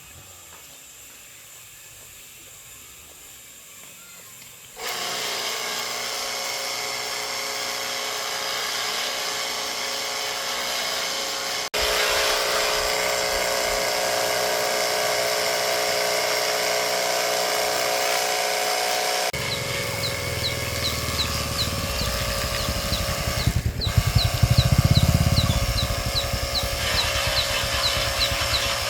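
An electric motor running steadily, coming on about five seconds in and growing louder partway through, with a low pulsing and a faint regular ticking added in the last third.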